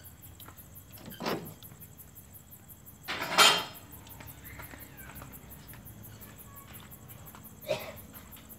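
Scattered kitchen handling sounds, dishes and utensils being moved: a faint knock about a second in, a louder brief clatter about three and a half seconds in, and another short knock near the end.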